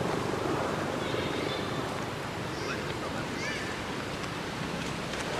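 Steady outdoor rushing noise, like wind on the microphone, with a few faint, short high chirps about halfway through.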